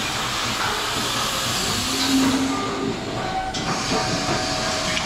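DeLaval milking robot running during milking: a steady hiss of air and vacuum, with a brief low hum about two seconds in.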